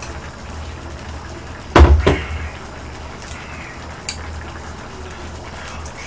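A drinking glass set down on the table: a sharp knock about two seconds in, with a lighter second knock just after, over a steady low hum. A few small clicks of a spoon and bowl follow later.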